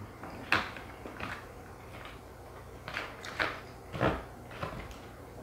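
Eating sounds from a bowl of buckwheat noodles: wooden chopsticks clicking and scraping in a plastic container while the noodles are slurped and chewed, as a string of short, sharp, irregularly spaced sounds.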